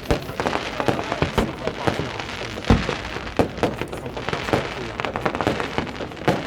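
Fireworks going off in many irregular sharp bangs and crackles, a few louder reports standing out over a continuous crackle, as the fireworks barge burns.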